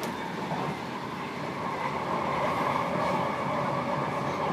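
Brisbane suburban electric train running along the line, a steady rumble and rush with a short click at the start; a mid-pitched hum grows and the sound gets a little louder from about a second and a half in.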